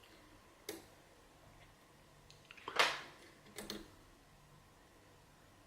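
A few sharp little clicks and taps from a lock pick and tension wrench working in a Kik lock cylinder, with a louder short rustle about three seconds in.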